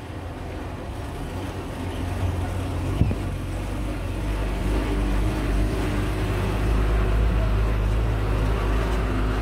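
A filled glass bottle is set down on a concrete floor with a single knock about three seconds in, over a steady low rumble that grows louder.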